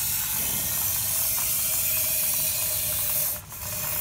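Cavity wax spray gun spraying steadily as wax is forced through a long wand into the sill cavity. It cuts off briefly near the end, then starts again.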